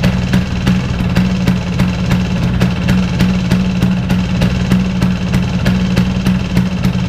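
Vespa PX with a 177 cc two-stroke single-cylinder kit idling steadily through its aftermarket exhaust, with sharp ticks about three times a second.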